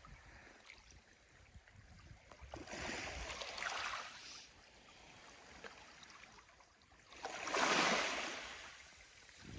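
Sea waves washing against the shore: a rushing swell about three seconds in and a louder one near the end, with low hiss between.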